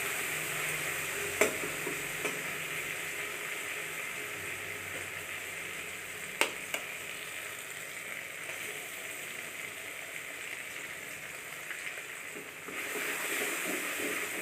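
Tomato masala sizzling gently in oil in a wok while a spatula stirs it, with a few sharp clicks of the spatula against the pan. About thirteen seconds in an egg goes into the hot pan and the sizzle grows louder.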